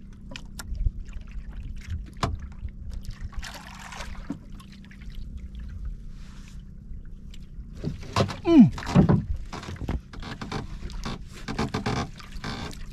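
Small knocks and rustles of a fisherman hauling a hand line in over the side of a wooden outrigger boat, over steady wind and water noise. A short falling cry sounds about eight seconds in, and the handling noise grows busier toward the end.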